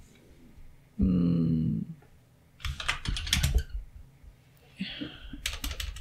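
Computer keyboard typing in two short bursts of keystrokes. The first burst is near the middle and the second near the end. Before them, about a second in, a voice gives a brief held hum, which is the loudest sound.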